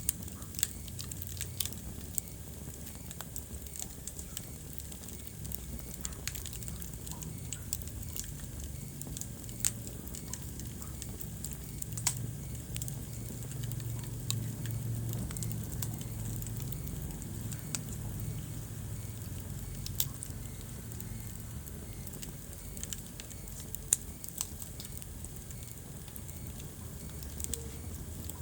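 Wood fire burning in a fireplace, crackling with irregular sharp pops over a low steady rumble of the flames; one louder pop near the end.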